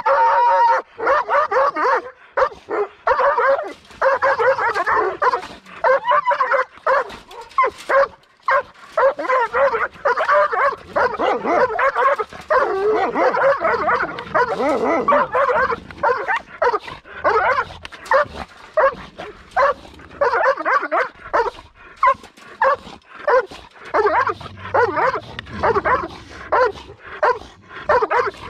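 Penned dogs barking excitedly in rapid, overlapping barks with barely a pause, begging for raw meat at feeding time.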